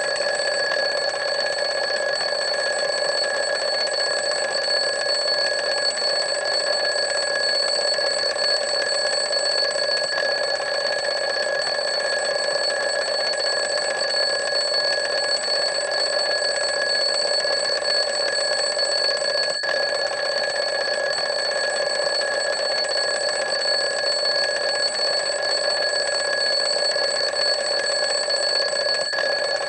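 Alarm clock ringing continuously, one steady unbroken ring at a constant loud level.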